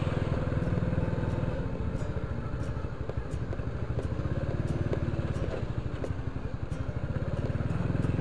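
Honda Biz's small single-cylinder four-stroke engine running steadily under way, with a few light rattles.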